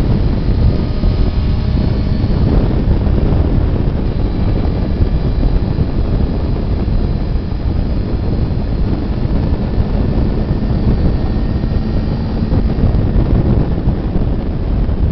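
Wind rushing over the microphone of a Suzuki GSX-R sport bike riding at road speed, with its inline-four engine running steadily underneath.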